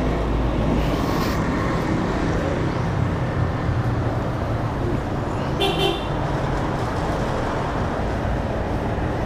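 Street traffic noise, with a short vehicle horn toot about five and a half seconds in.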